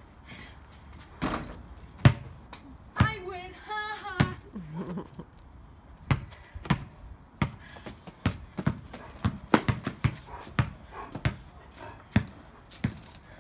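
A basketball bouncing repeatedly on an asphalt driveway: sharp thuds, irregular at first, then about two to three a second from about halfway on. A short high-pitched voice sounds about three seconds in.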